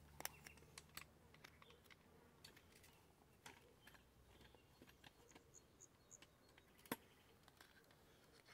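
Near silence with faint, scattered clicks and taps of parts and tools being handled during a brush cutter repair, and one sharper click about seven seconds in.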